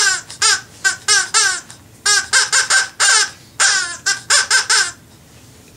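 Rapid squawking, parrot-style chatter: a quick string of short, squeaky syllables with brief gaps, as the macaw puppet "reads" the page aloud. It stops shortly before the end.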